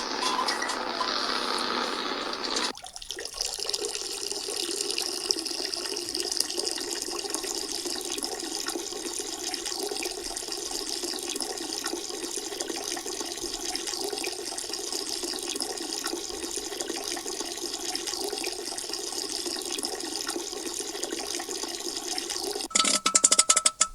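A steady stream of liquid pouring into water, changing character with a brief dip about three seconds in and then running evenly. Near the end comes a loud burst of sharp clicks and knocks.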